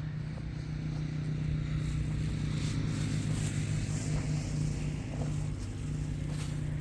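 An engine running steadily with a low hum, dipping briefly about five and a half seconds in.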